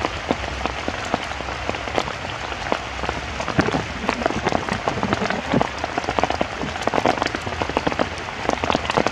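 Heavy rain falling: a steady dense hiss with many sharp drop hits close by.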